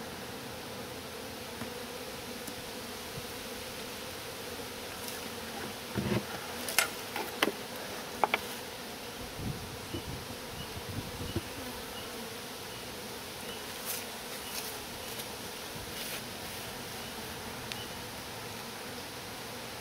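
Honeybees buzzing around an open hive in a steady hum. A cluster of sharp knocks and clatters comes about six to eight seconds in, and a few more around fourteen to sixteen seconds, as the wooden hive covers are handled and set back on.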